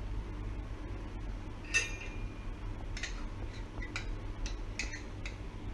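Garlic cloves dropped one by one into a small steel mortar, giving light metallic clinks. A louder, briefly ringing clink comes a little under two seconds in, then about six quicker, lighter clinks follow in the second half.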